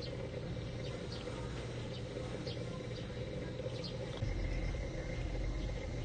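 Outdoor ambience: a steady low background hum with faint, short, high chirps scattered through it. From about four seconds in, a louder low rumble joins.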